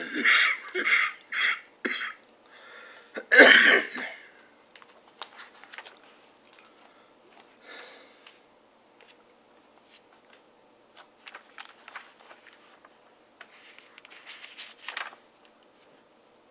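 A man coughing four times in quick succession, then once more, harder, about three and a half seconds in. After that only faint scattered clicks and rustles, with a short louder rustle near the end.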